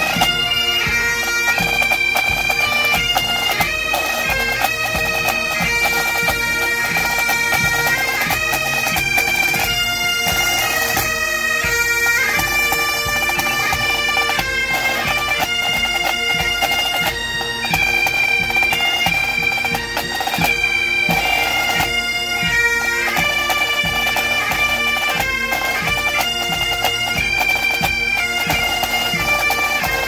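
Pipe band playing: Highland bagpipes with steady drones under the chanter melody, backed by snare, tenor and bass drums.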